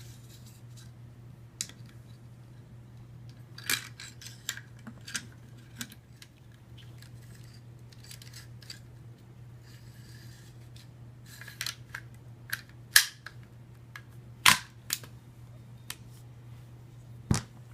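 Metal clicks and clacks of an AR-15 upper and .22 LR bolt carrier group being handled and fitted together: scattered single clicks at first, then a quicker run of sharper clacks later on, over a faint steady low hum.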